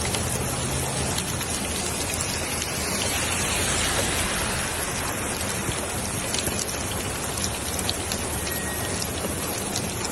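Heavy rain pouring down: a steady hiss with many small drops ticking on surfaces.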